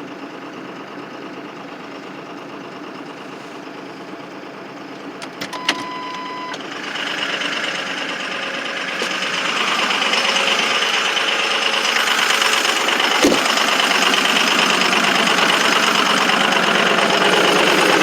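Ford 6.0 Powerstroke V8 turbodiesel idling after a cold start, with injectors 1 and 5 misfiring. About six seconds in there is a click and a short steady beep, after which the engine gets louder, with another click near the end.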